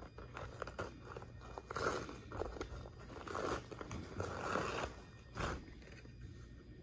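Thin paper-like embroidery stabilizer being torn and peeled away from the stitching on a terry kitchen towel: crinkling and tearing in short bursts, with a few louder rips spread through.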